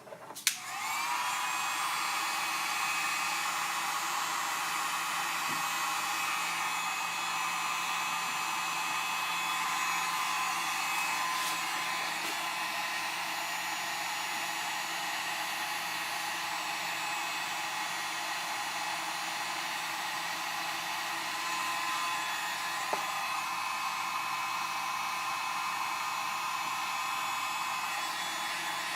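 Electric heat gun starting with a click, its fan spinning up in a brief rising whine, then running steadily: a blowing hiss with a steady whine, used to warm a vinyl overlay so it conforms to the light lens.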